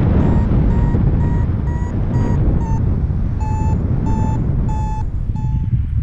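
Paraglider's variometer beeping in short, evenly spaced tones about twice a second, with a brief pause about three seconds in, over heavy wind noise on the microphone in flight. The beeping is the instrument's signal that the glider is climbing in rising air.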